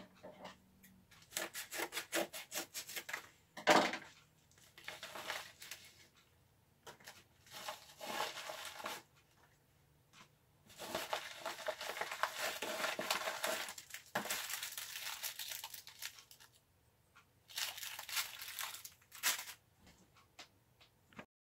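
Paper and plastic packaging being handled, rustling and crinkling in irregular bursts with short pauses between them, and a sharp click about four seconds in.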